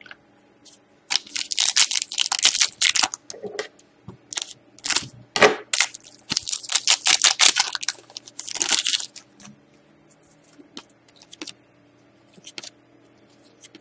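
Foil wrapper of a hockey trading-card pack crinkling and being torn open, in rapid crackling bursts that stop about nine seconds in. After that come a few soft clicks of cards being thumbed through.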